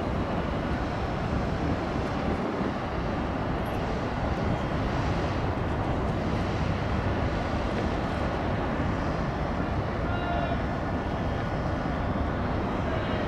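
Tugboat's diesel engine running under load while towing a newly launched tanker: a steady low rumble.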